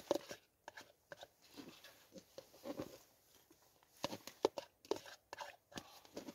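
White plastic fork scraping and clicking against the sides of a Pot Noodle cup as noodles are scooped out and eaten, in short irregular clicks and scrapes that come thickest about four to five seconds in.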